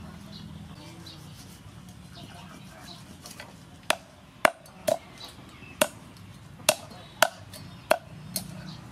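Faint scraping of a knife over a whole fish, then about eight sharp knocks in the second half as the knife chops through the fish onto a wooden chopping board.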